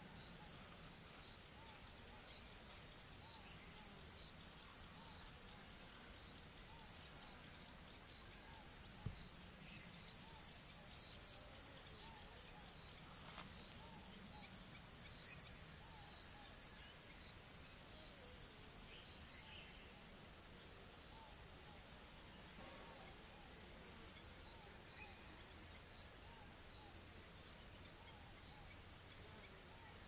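Insect chorus of crickets and similar insects: one steady high-pitched trill with rapid, evenly pulsed chirping over it, and a fainter, lower chirp repeating about once a second.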